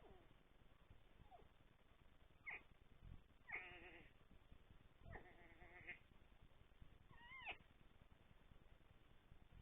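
An unidentified animal making faint, pitched cries: about four short calls a second or two apart, the last with a quick rise and fall in pitch.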